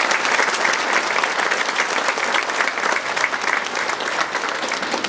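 Theatre audience applauding, a dense steady clapping that begins to thin out near the end.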